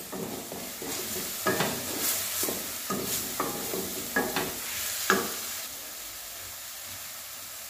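Onion, ginger and garlic paste frying in hot mustard oil, sizzling steadily, while a wooden spatula stirs and scrapes against the steel pan several times. The stirring stops about five seconds in, leaving only the sizzle.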